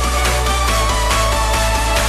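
Electronic music with a steady beat, deep bass and held synth notes.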